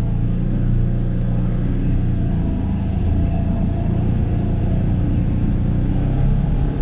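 Polaris Ranger 1000 side-by-side's engine running at a fairly steady pitch, with small rises and dips in speed.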